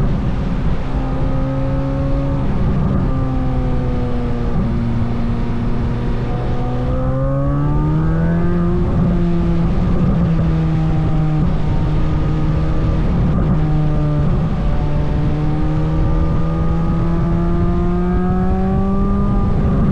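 Chevrolet Corvette C8 Z06's flat-plane-crank V8 running on trailing throttle down a hill: a steady engine note that holds low for several seconds, rises quickly about seven seconds in, then climbs slowly.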